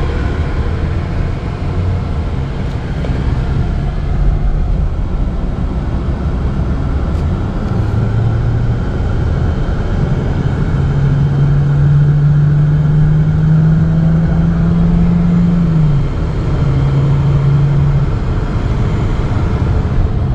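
A 2013 Chevy Cruze's 1.4-litre turbocharged four-cylinder engine pulls under acceleration from a standstill up to highway speed, heard from inside the cabin. Its note steps up in pitch about 8 seconds in and holds a steady hum, then dips briefly about 16 seconds in before carrying on. It is accelerating normally with a new catalytic converter fitted, no longer the car that would not accelerate.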